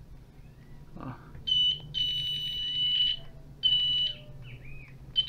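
Digital multimeter continuity beeper sounding a steady high tone in several beeps, the longest about a second, as the probes touch the base and emitter of transistor Q801: the beep signals a short between base and emitter.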